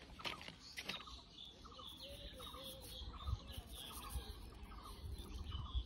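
Faint bird calls, short chirps repeating several times a second, with a wavering lower call about two seconds in. A few clicks come in the first second, and low rumble on the microphone comes in the second half.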